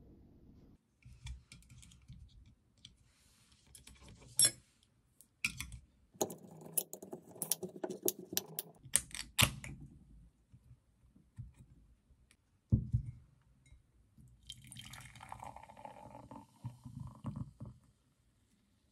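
Aluminium beer can handled on a table, with sharp clicks and one loud knock as it is set down, then beer poured from the can into a glass mug, splashing and foaming for a few seconds near the end.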